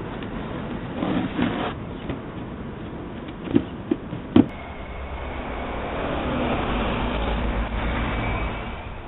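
Outdoor street sound with a vehicle passing: a low rumble that swells over a few seconds and then eases off, after a few sharp knocks near the middle.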